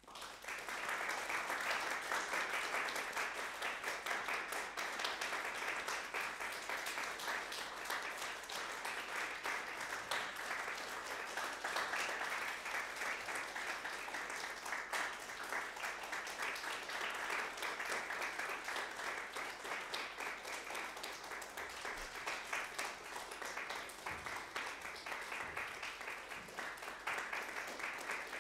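Audience applause that breaks out of silence and builds within about a second to steady, dense clapping.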